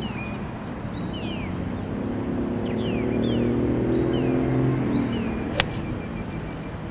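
A 5-iron striking a golf ball from fairway turf: one sharp crack about five and a half seconds in. Birds call repeatedly with short falling chirps throughout, over a steady low hum.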